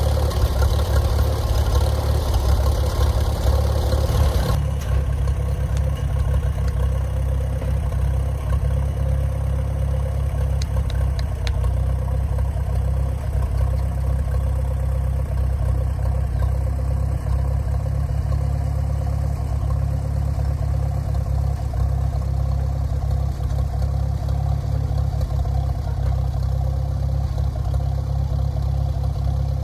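Farmall M tractor's four-cylinder engine running steadily with a low drone; a brighter, louder layer of sound drops away abruptly about four and a half seconds in.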